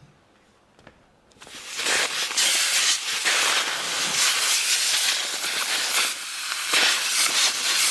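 A few faint clicks, then about a second and a half in a loud, steady hissing noise with a fine crackle sets in and keeps going.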